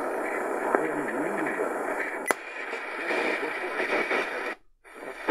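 Sangean PR-D19 portable radio's speaker playing weak daytime AM medium-wave reception: a steady static hiss with a faint voice under it. A short click comes about two seconds in. Near the end the sound drops out for a moment as the radio steps to the next channel.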